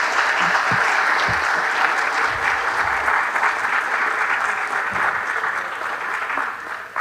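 Audience applauding: steady, dense clapping that tapers off near the end.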